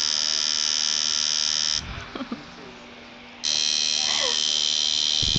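Coil tattoo machine buzzing steadily, cutting out a couple of seconds in and starting up again about a second and a half later. A few low knocks near the end.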